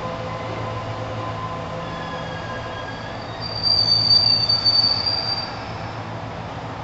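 Steady low hum of a stopped electric train. About three and a half seconds in, a high-pitched brake squeal lasts about two seconds as an express train pulls in alongside on the adjacent track.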